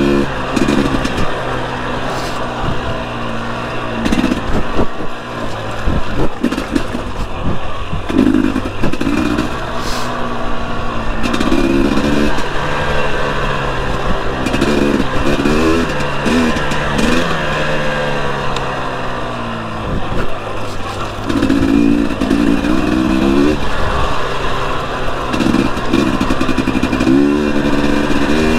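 The single-cylinder two-stroke engine of a 2021 Husqvarna TE250i dirt bike revving up and falling back again and again while riding trail, with occasional sharp knocks from the bike over rough ground.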